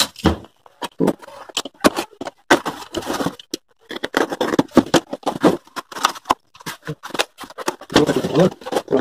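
Snap-off utility knife slicing and scraping through packing tape and cardboard on a shipping carton, with irregular clicks and rustles as the box is handled.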